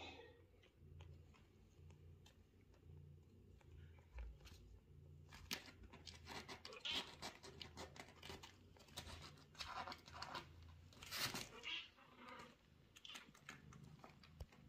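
A kitten's claws scratching and rustling on a fleece blanket and the fabric wall of a playpen: scattered soft scrapes, then a busier run of scratchy rustles through the middle, with a faint low hum coming and going underneath.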